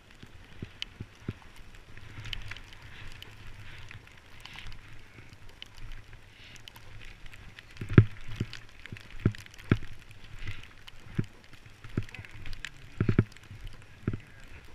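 A rider sliding down packed snow, heard from a GoPro: a steady scraping hiss of the skis or board on the snow over a low wind rumble on the microphone. Scattered knocks and thumps run through it, coming thicker from about eight seconds in, and the loudest is near eight seconds.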